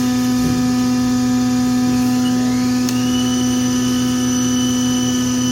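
Haas ST-30 CNC lathe running a cut into a hole in the part, a steady machine hum with a whine that rises in pitch about two seconds in and then holds level.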